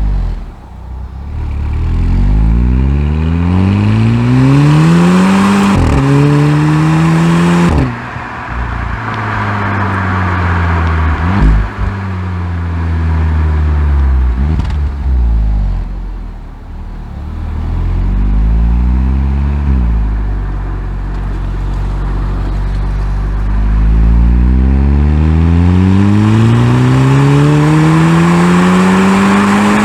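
Stock 2011 VW Golf 6 GTI's turbocharged 2.0-litre four-cylinder under hard acceleration, revs climbing and dropping sharply at quick DSG upshifts. In the middle the revs fall away with three short rev blips on downshifts, then climb again in one long pull near the end.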